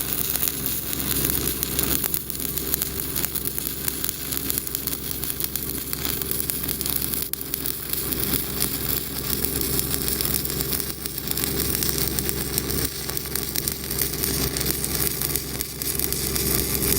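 Shielded metal arc welding: a low-hydrogen downhill stick electrode (Pipeliner LH-D) burning a steady, crackling arc while running a root-side pass down a steel pipe through the 3 o'clock position, with a slightly lengthened arc. A steady engine hum runs underneath.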